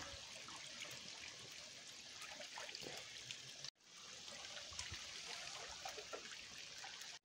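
Small mountain stream trickling over rocks, a steady light rush of water with small splashes. It drops out for a moment about halfway through.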